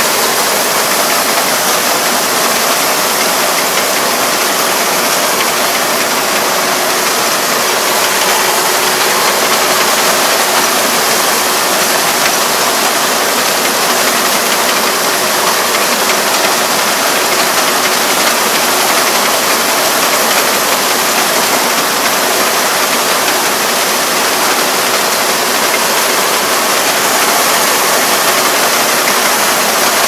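Rice combine harvester running steadily as it cuts and threshes rice: an even, dense mechanical noise of engine and threshing gear, with a faint steady hum under it.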